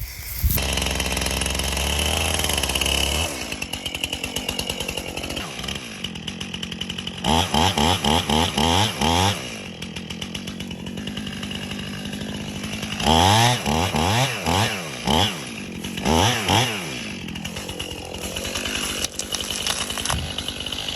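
Stihl chainsaw running hard for about three seconds, then dropping back and revving up and down in repeated bursts, in two clusters about seven and thirteen seconds in, while taking down a tree section that already has a deep face cut.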